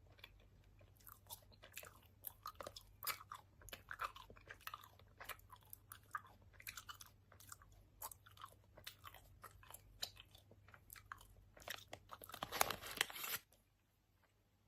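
Open-mouthed chewing of a Haribo sour watermelon gummy: irregular wet smacks and clicks of the lips and tongue. A louder flurry comes about a second before the chewing stops abruptly near the end.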